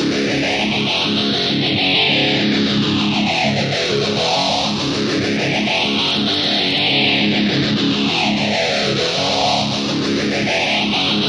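Guitar-driven rock music, with a swirling sweep that rises and falls about every two and a half seconds.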